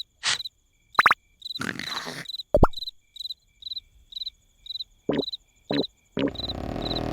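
Cartoon night-time ambience of cricket chirps repeating two or three times a second, broken by a few short cartoon sound effects: quick pitch-sweeping pops and clicks. About six seconds in, a louder steady noise starts.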